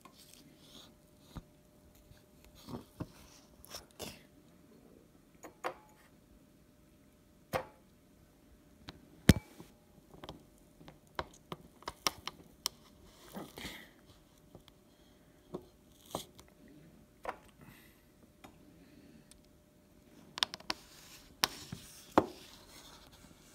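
A metal spoon scraping and digging into firm ice cream in a paper tub, with irregular sharp clicks and knocks as it strikes the tub and a bowl. The knocks come thicker near the end.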